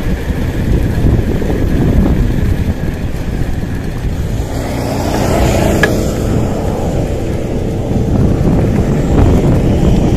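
Steady low rumble of wind buffeting the microphone and road noise while a mountain bike is ridden, with one sharp click about six seconds in.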